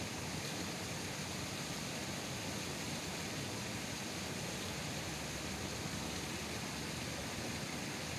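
Steady hiss of rain falling, an even, unchanging wash of noise.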